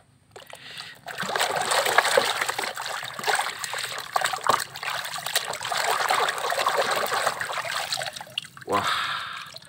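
Muddy water splashing and sloshing in a plastic basin as a plastic toy box truck is scrubbed and swished about in it by hand, starting about a second in.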